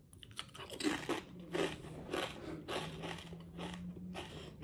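A person chewing a thick kettle-cooked potato chip with the mouth close to the microphone: crisp crunches, about two a second.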